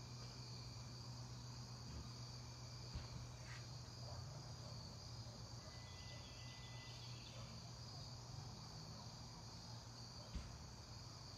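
Crickets chirping steadily in a high, continuous band over a low steady hum, with a couple of faint knocks.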